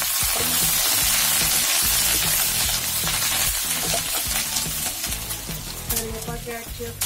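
Fresh curry leaves sizzling in hot sesame oil in a tempering, stirred with a wooden spatula; the sizzle eases off over the last couple of seconds.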